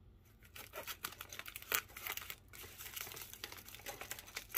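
Grey plastic poly mailer crinkling and rustling as scissors cut it open and hands pull it apart: a dense run of crackles starting about half a second in, with a brief pause about halfway.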